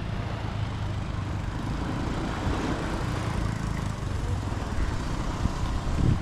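Motorbike engine running steadily with a low, even drone.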